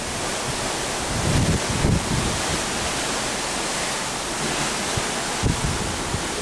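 Steady rush of wind and sea, with a few gusts buffeting the microphone.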